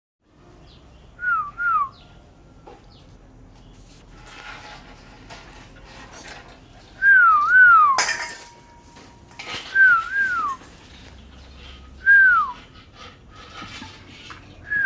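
Dog whining: short high-pitched falling whines, mostly in pairs, repeated every few seconds, with light clinks and knocks between them and one sharp click about eight seconds in.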